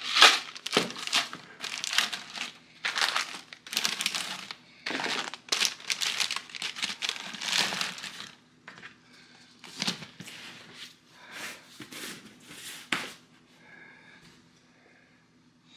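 Plastic bags of cable ties crinkling and rustling as they are handled, in a run of short bursts that die away near the end.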